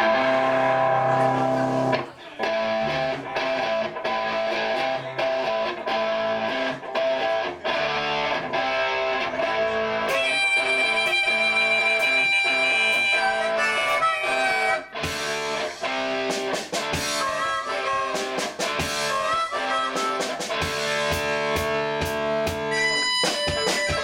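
Live blues band playing: guitars, bass guitar and drum kit, with a harmonica played over them.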